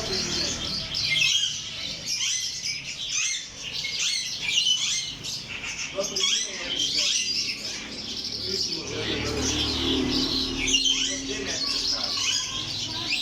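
A dense chorus of small birds chirping and twittering together, many short overlapping calls and trills throughout.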